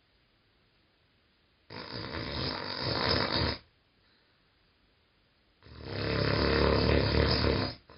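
Snoring: two long, loud snores about four seconds apart, with quiet between them. The second snore is longer and deeper.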